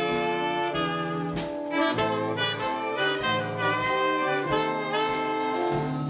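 A dance band saxophone section playing a jazz-style arrangement together in sustained chords, over a bass line that steps from note to note.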